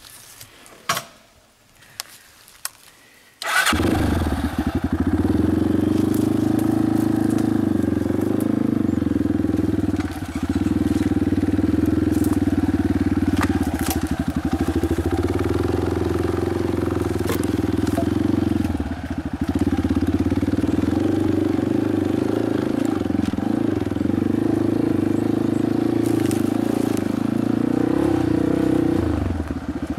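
A few sharp clicks. Then, about three and a half seconds in, an off-road vehicle's engine starts and runs steadily at low speed, with brief dips in level twice.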